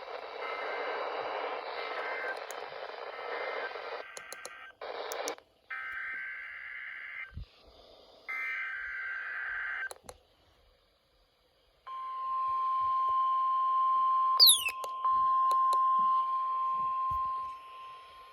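Weather radio receiver hissing with static, then short warbling bursts of the SAME digital alert header, then the steady NOAA Weather Radio warning alarm tone sounding for about five and a half seconds from about twelve seconds in, the loudest part. The tone is the warning alarm of a required weekly test.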